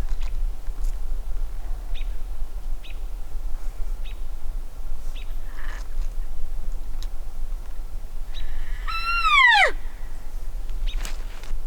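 Bull elk bugling once, about nine seconds in: a high, clear whistle that slides sharply down in pitch in under a second, over a steady low rumble.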